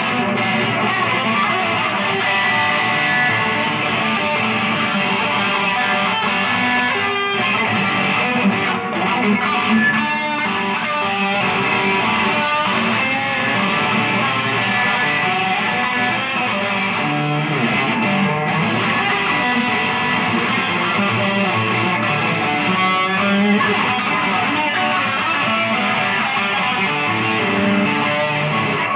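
Electric guitar played without a break, strummed chords at an even loudness.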